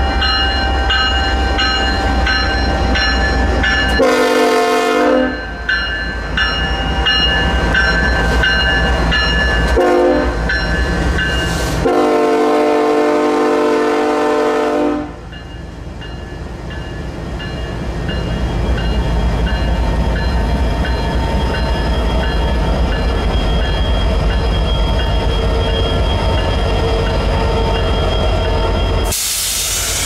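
Union Pacific diesel freight locomotives rumbling past close by, sounding the horn three times: a short blast about four seconds in, a very brief one near ten seconds, and a long one from about twelve to fifteen seconds. A brief hiss near the end.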